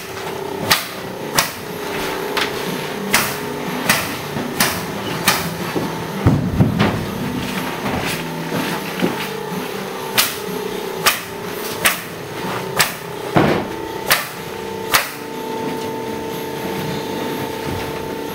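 Hammer blows on the wood framing of a house under construction, about one strike every three-quarters of a second. A first run of strikes gives way to a pause of a few seconds, then a second run stops about fifteen seconds in. A steady hum runs underneath.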